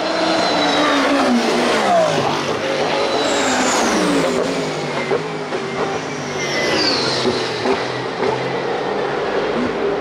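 IMSA race cars passing at speed, several engines sounding at once, each one's pitch falling as it goes by, with more passes around the first to third second and again near the seventh second.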